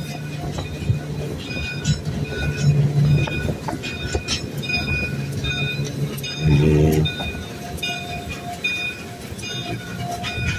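Canadian Pacific train rolling past at close range: steel wheels running on the rails with scattered clicks and short, repeated high squeals, over a steady low drone. The drone swells briefly about six and a half seconds in.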